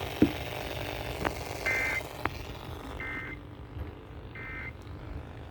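Emergency Alert System end-of-message data bursts: three short, harsh digital squawks about a second apart, signalling that the severe thunderstorm warning broadcast has ended. A sharp thump comes just before them, with a couple of faint clicks.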